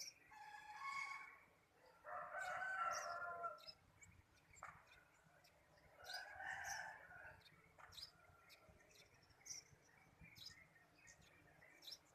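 A rooster crowing three times, each crow a second or more long, the second the loudest. Small birds give short high chirps throughout.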